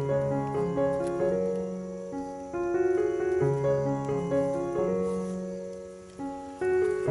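Background music: a gentle piano melody over held bass notes.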